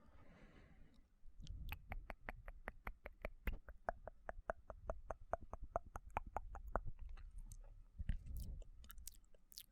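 Close-miked ASMR mouth sounds: a brief breathy hiss, then a fast, even run of wet mouth clicks, about five a second, with a few scattered clicks near the end.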